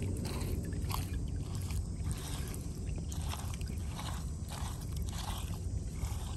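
Fingers scraping and squishing through wet mud and dead leaves: a run of short, uneven scrapes, about two a second, over a steady low rumble.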